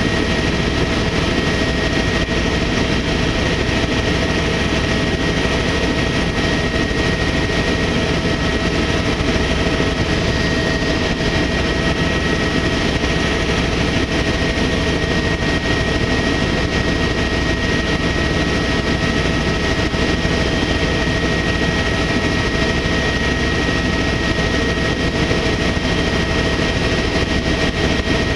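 Tour helicopter's engine and rotors running steadily in cruise, heard from inside the cabin: an even, loud drone with a steady high whine over it.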